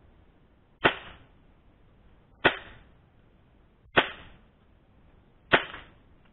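Suppressed HFC MAC-10 (M11) gas blowback airsoft replica firing four single shots about a second and a half apart, each a sharp crack with a short fading tail.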